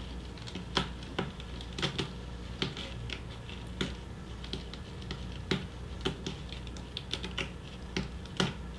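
Scattered light clicks and taps at an irregular pace, a few a second, over a faint low steady hum.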